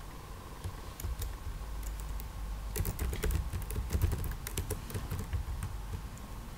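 Typing on a computer keyboard: scattered key clicks, coming in quick runs about three and four seconds in.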